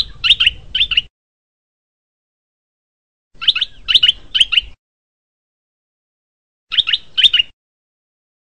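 Caged bulbul calling: three short phrases of two to four quick chirping notes, about three seconds apart.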